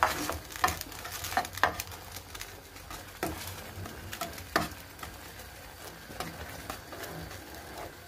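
Metal spatula scraping and knocking against a metal baking tray while milk pudding caramelizes on the gas burner, with a faint sizzle underneath. The knocks come several times in the first two seconds, then sparser.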